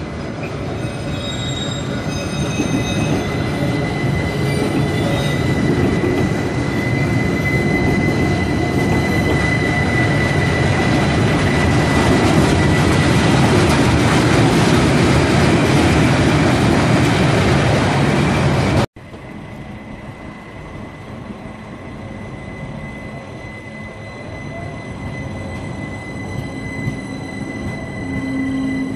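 Rhaetian Railway metre-gauge train rolling past close by on street track, with a steady wheel rumble that grows louder and a thin, steady, high wheel squeal running through it. After a sudden cut about two-thirds in, a red passenger train passes more quietly, still with a faint squeal.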